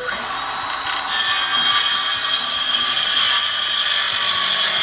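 Circular saw cutting timber: it runs for about a second, then grows louder as the blade bites into the wood, and the cut goes on steadily.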